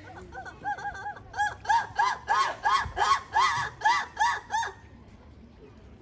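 A lemur calling: a run of about a dozen short yelps, each rising and falling in pitch, starting soft and growing louder at about three a second, then stopping short about five seconds in.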